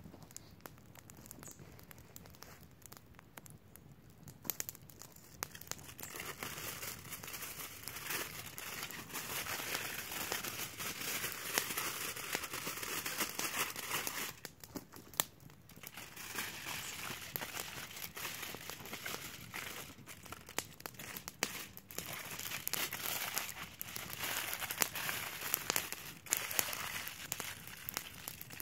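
Aluminium foil crinkling and crumpling as it is handled and folded by hand. It starts faint, then comes in two long spells of dense crackling with a short lull about halfway.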